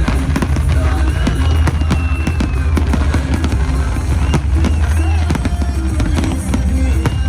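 Fireworks bursting and crackling in quick succession, with a few high whistles gliding up and down, over loud music with a heavy, steady bass.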